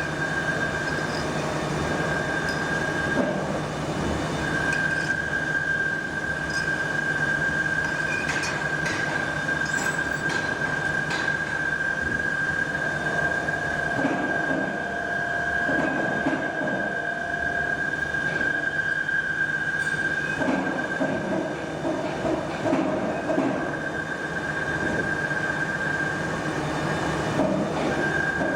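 Steady workshop machinery noise with a constant high-pitched whine and a low hum, and a few faint light clicks about a third of the way in.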